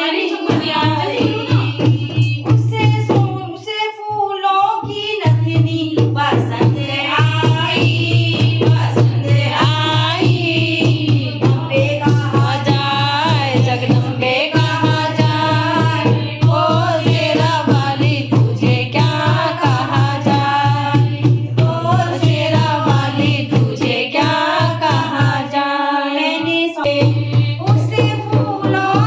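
Devotional song: singing over a steady drum beat with a deep bass. The beat drops out briefly twice.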